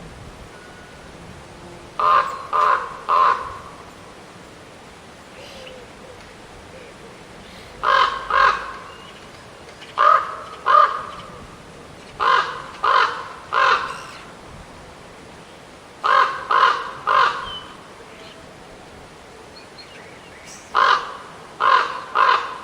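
Raven calling in repeated series of short, harsh caws, two to four in each series, a new series every few seconds.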